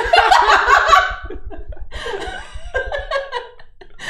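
Several people laughing together at a joke, hardest in the first second, then easing into broken chuckles.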